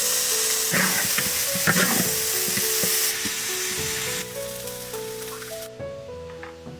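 Food stir-frying in a hot pan: a loud, steady sizzle with a few spatula scrapes and stirs in the first two seconds. The sizzle thins after about three seconds and stops about two-thirds of the way in. Soft background music plays underneath.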